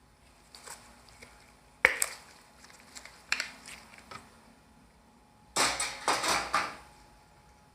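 Metal spatulas knocking, chopping and scraping on the steel cold plate of an ice cream roll machine. There is one sharp clack about two seconds in, a few lighter taps, and then a dense run of chopping and scraping near the end.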